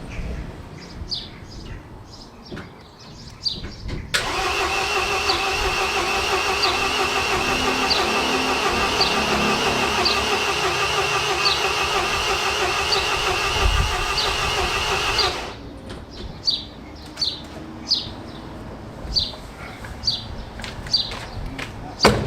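Starter motor cranking the MINI R56's 1.6 HDi DV6 diesel engine for about eleven seconds at a steady pitch, with no sign of it firing, then cutting off suddenly: the engine will not start. A bird chirps over and over throughout.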